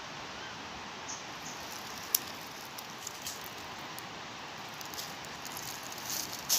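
Capuchin monkey moving about in a tree: scattered sharp clicks and light rustles of twigs and leaves over a steady outdoor hiss, with one loud snap about two seconds in and a busier run of snapping and rustling near the end.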